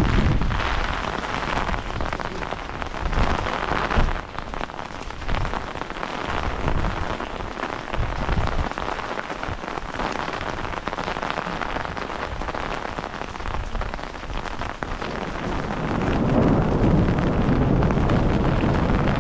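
Steady rain falling on wet pavement and parked cars, with a low rumble growing in the last few seconds.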